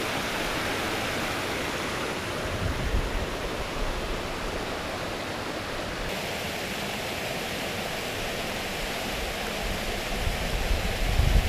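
Mountain stream running over rocks: a steady rush of water that turns hissier about halfway through. A low rumble grows near the end.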